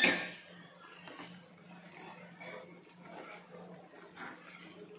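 A steel spoon clanks once sharply against a non-stick kadai, then scrapes and stirs quietly through a thick besan barfi mixture in the pan.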